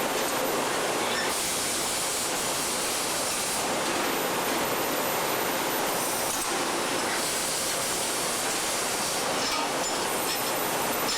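Electric welding arc on an exhaust pipe, a steady hissing crackle, with stretches where the high hiss grows stronger.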